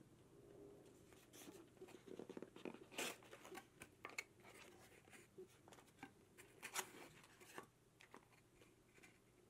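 Faint handling sounds of a cardboard box of pre-wound magnetic embroidery bobbins being opened and the bobbins shifting under fingers: scattered light clicks and rustles, the sharpest about three seconds in and again near seven seconds.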